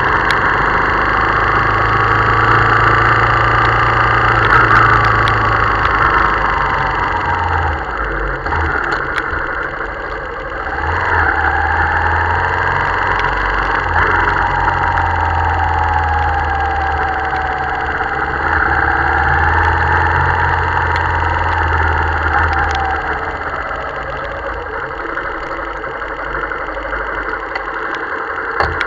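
Motorcycle engine running through heavy rain, its pitch rising and falling as the throttle opens and closes, over a steady hiss of rain. For the last few seconds it drops lower and quieter as the bike slows to idle.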